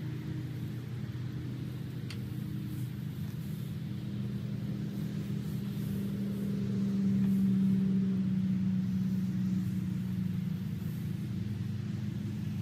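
An engine running steadily with a low hum that swells a little about halfway through, with faint crackling of dry hay being pulled apart and tossed.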